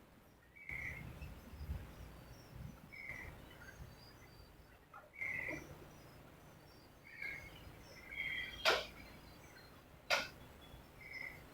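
Small birds chirping in short calls every couple of seconds, with two sharp clicks about a second and a half apart near the end.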